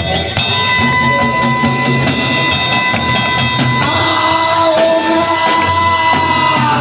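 Live rock band playing: drum kit with cymbal hits, electric guitar and bass guitar, with long held notes over the top.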